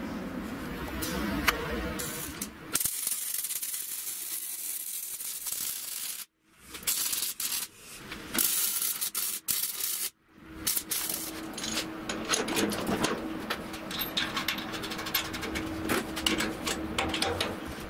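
Electric arc welding on a steel wheelbarrow frame: crackling and sizzling in runs, broken by two sudden cuts, with a steady hum under the later part.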